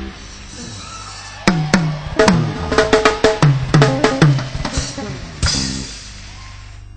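Drum kit playing a quick fill of about a dozen tom hits, each dropping in pitch, from about a second and a half in. It ends on a cymbal crash near the end, over a low held chord.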